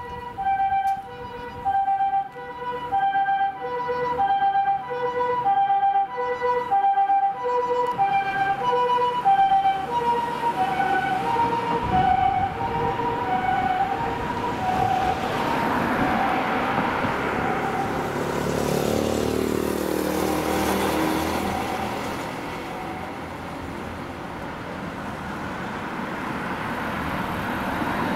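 Japanese ambulance's two-tone electronic siren sounding its alternating high-low notes, dropping slightly in pitch about ten seconds in as it passes and fading out after about fifteen seconds. The rush of passing traffic takes over after that.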